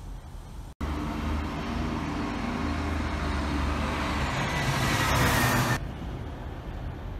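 Motor vehicle on the road: engine hum with tyre and road noise. It starts suddenly about a second in, after a brief dropout, grows louder over about five seconds and cuts off suddenly near the end, with quieter street traffic before and after.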